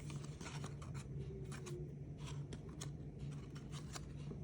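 Trading cards being handled and slid through one after another: a run of soft, irregular clicks and rustles over a low steady hum.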